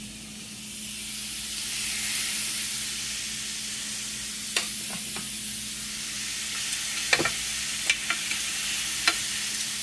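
Raw chicken breasts sizzling on the hot, nonstick ribbed plate of a Power XL electric indoor grill set to 350 degrees, the sizzle swelling about a second in as the meat goes down and then holding steady. A few light clicks of metal tongs against the grill come through the sizzle.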